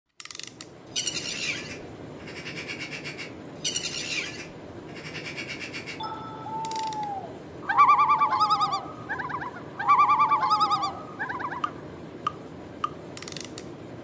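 Cartoon sound effects of clockwork mechanical birds: short ratcheting, whirring bursts, then a falling whistle and two loud trilling, warbling bird calls about two seconds apart, ending in a few small clicks.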